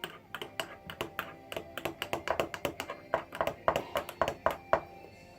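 Teaspoon clinking against a ceramic coffee cup while stirring, a quick run of ringing clinks, about four or five a second.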